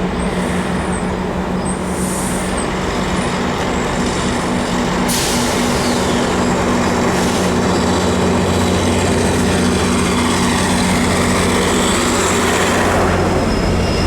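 A train passing close by: a diesel locomotive's steady engine drone under a loud, continuous rumble of wheels on the rails.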